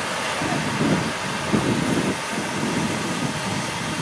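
Historic railway passenger coaches of a steam train rolling slowly past over the tracks, wheels rumbling with irregular knocks as they cross the rails.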